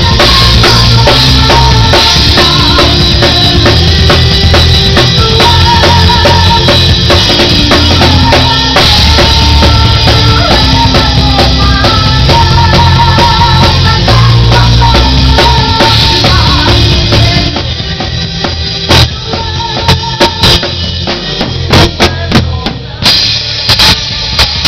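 Live rock band playing loud, with a drum kit (bass drum, snare and cymbals) driving it over steady low bass notes. About two-thirds of the way through, the music thins to a break of single sharp drum hits, and the full band comes back in near the end.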